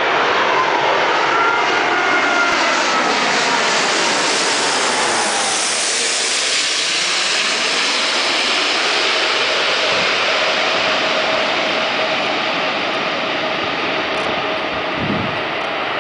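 Airbus A380's four Rolls-Royce Trent 900 turbofans at approach power as the airliner passes low overhead on final approach. A loud jet roar with whining tones that fall in pitch over the first few seconds, then a steady whine as the aircraft moves away toward the runway.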